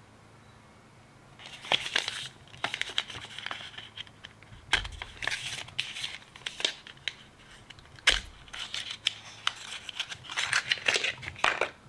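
A cardboard mascara carton being opened by hand: the paper box rustles and scrapes, with small clicks and crinkles as the flap is worked open. Two sharp knocks come about five and about eight seconds in.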